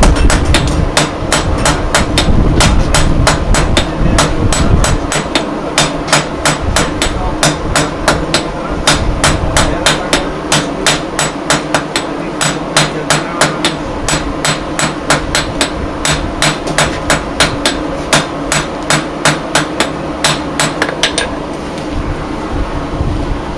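Blacksmith's hand hammer striking a red-hot iron bar on an anvil in a steady rhythm of about three blows a second. The blows stop a couple of seconds before the end, leaving a steady hum underneath.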